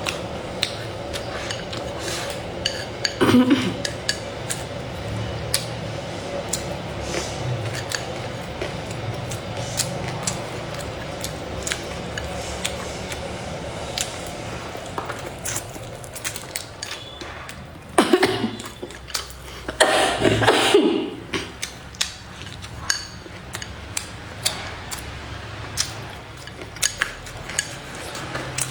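Eating utensils clinking and tapping against dishes during a meal: many small scattered clicks, with a few louder clatters about three seconds in and again around eighteen to twenty-one seconds in.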